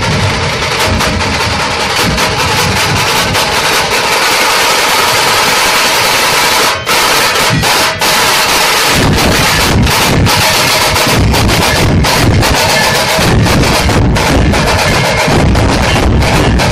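A massed troupe of large dhol drums beaten together in a dense, loud rhythm, with the deep drum beats heavier from about nine seconds in.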